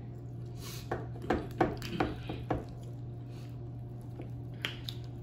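Knife sawing into a whole rotisserie chicken on a wooden cutting board: a quick run of knocks and scrapes in the first few seconds, then two more near the end.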